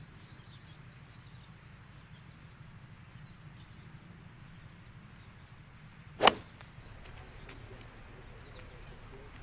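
A single sharp crack of a golf iron striking the ball, about six seconds in. Faint bird chirps sound over a low steady outdoor background.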